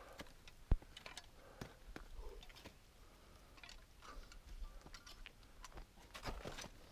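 Faint, scattered clicks and scrapes of climbing gear against rock and the steel safety cable, with one sharper click about three-quarters of a second in.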